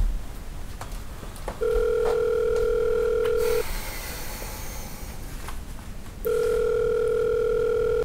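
Phone ringback tone heard through a handset while a call is placed: two rings of a steady tone, each about two seconds long, with a pause between them.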